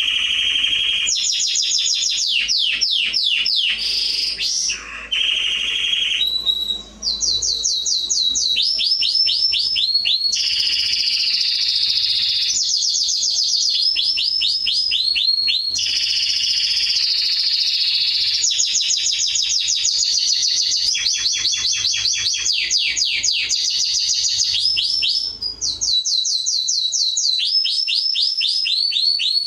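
Domestic canary singing a long, unbroken song of rapid trills, each a run of quickly repeated downward-sweeping notes, switching to a new trill every second or two with one brief pause early on.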